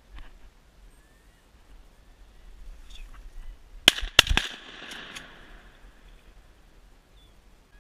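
Shotgun fire at ducks: three quick, loud shots close together about four seconds in, with a short echo trailing after them.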